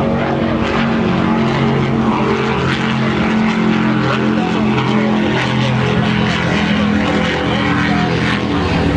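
Motorboat engines running at speed, a steady drone with a hiss over it.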